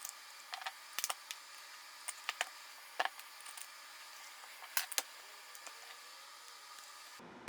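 Small hard parts clicking and tapping together as a nailer is handled and reassembled: a dozen or so scattered sharp clicks, the loudest about a second, three seconds and five seconds in.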